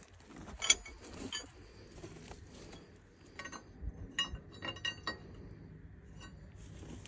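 Steel combination wrenches clinking against each other and against a hydraulic hose fitting on a forage harvester, a scatter of light ringing metallic clicks, most of them between about three and five seconds in, as the fitting of a blown hydraulic hose is worked loose.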